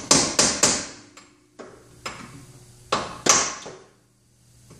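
A ball-peen hammer strikes a bolt used as a drift to drive the rear wheel bearing out of a Porsche 914's trailing arm. The sharp metallic strikes come in two quick groups of three, one at the start and one about three seconds in, with a lighter tap between.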